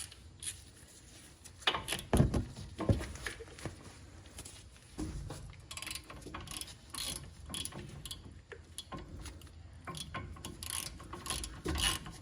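Hand ratchet clicking in uneven runs as the caliper bracket bolts are worked loose, with a few heavier metallic knocks about two seconds in.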